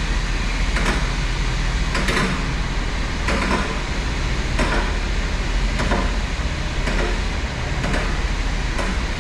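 Steady road and engine rumble heard from inside a moving vehicle, with faint regular thumps about once a second.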